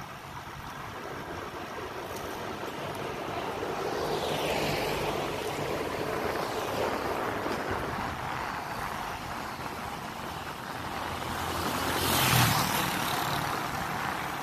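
Street traffic passing a moving bicycle: cars drive by, one swelling up around four to six seconds in, and a closer car passing loudest about twelve seconds in, then fading.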